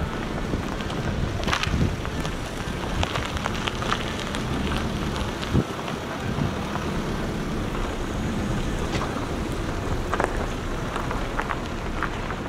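Outdoor street noise: wind rumbling on the microphone over traffic, with a few scattered short clicks and knocks.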